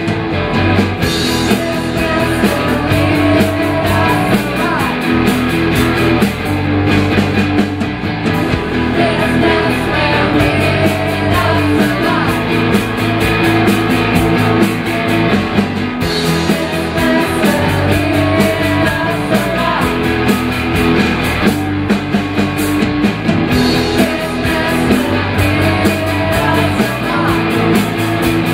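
Live rock band playing loud, steady music: electric guitars over a drum kit, with a regular beat.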